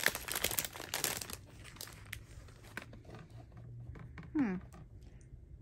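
Clear plastic packaging of a diamond painting tool kit crinkling as it is handled, loudest in the first second or so, then in lighter, scattered crackles.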